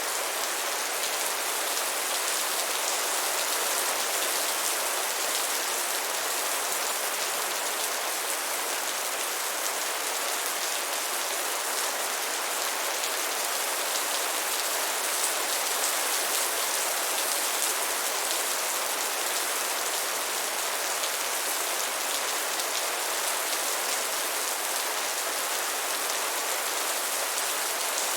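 Steady rain falling: an even, unbroken hiss speckled with the fine ticks of individual drops, with no thunder.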